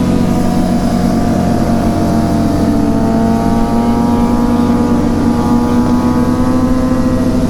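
Motorcycle engine running under way, its note climbing slowly over the first few seconds and then holding steady, with wind rushing over the microphone.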